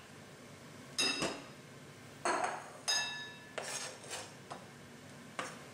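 Kitchen knife clinking against the cutting board and the rim of a bowl as diced dill pickles are scraped off the board into the bowl: a series of about seven sharp clinks, some ringing briefly.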